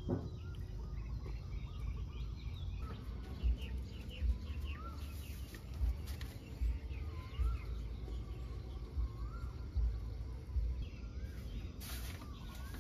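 Birds calling outdoors, short rising-and-falling whistled notes repeated every second or so, over a steady low rumble with occasional dull thumps.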